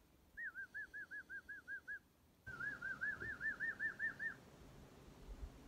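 Two runs of quick, evenly repeated whistled notes, each note rising and falling in pitch: about nine notes, a short pause, then about a dozen more.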